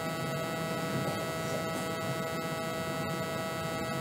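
Steady electrical mains hum and buzz with faint hiss, unchanging throughout.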